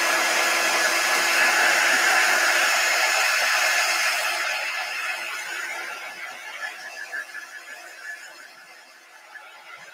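Small handheld craft dryer blowing steadily over freshly applied chalk paste to dry it. About four seconds in, its hiss thins out and the sound fades gradually through the second half.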